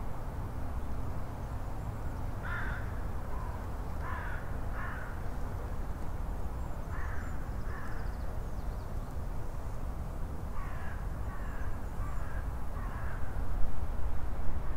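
A crow-like bird giving harsh caws, about ten calls in short runs of two or three, over a steady low rumble of wind. The rumble grows louder near the end.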